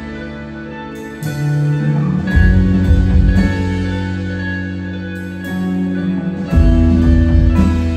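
A live instrumental post-rock band playing: electric guitars ring out sustained chords over bass and drums. Louder swells with fresh chords and cymbal crashes come in about a second in, again just past two seconds, and near the end.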